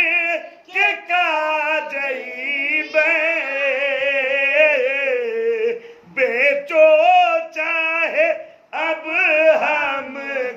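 A man singing a Sufi devotional song unaccompanied, drawing out long wavering notes between short breaths.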